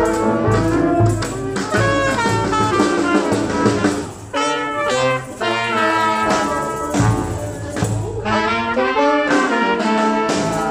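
Brass band music, trumpets and trombones playing a melody over a steady low beat about twice a second; the music dips briefly about four seconds in.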